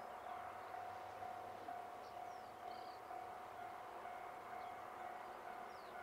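Faint railway level-crossing warning bell dinging steadily, about two strokes a second, signalling that a train is approaching. Small birds chirp in short calls over it.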